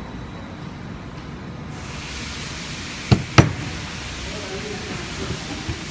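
Two sharp clicks a quarter of a second apart, about three seconds in, from small parts being handled and fitted back together during reassembly, over a steady hiss that gets brighter about two seconds in.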